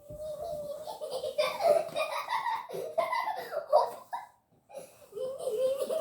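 A young child laughing loudly. It starts with a long held squeal, breaks into choppy bursts of laughter, pauses briefly a little past four seconds in, then laughs again.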